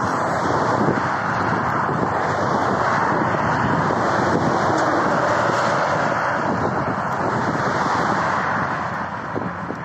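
Motorway traffic passing at speed: a steady rush of tyre and engine noise from cars and vans, easing off near the end.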